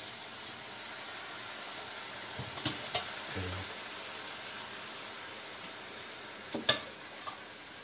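Şerbet (sugar syrup) ladled over a tray of hot, freshly baked kadayıf, sizzling steadily as it soaks in. A metal ladle clinks sharply a few times, around three seconds in and again near the end.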